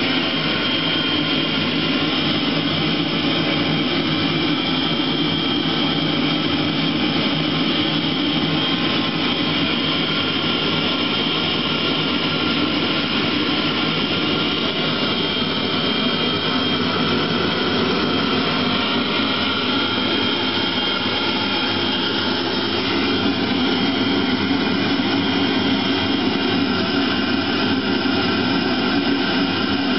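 Eberspächer Hydronic D5WZ diesel water heater running: a steady jet-like roar from its burner and combustion air fan, with a high whine on top. It gets a little louder about two-thirds of the way through.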